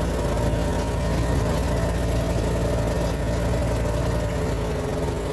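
A vehicle engine running steadily with a low, even drone.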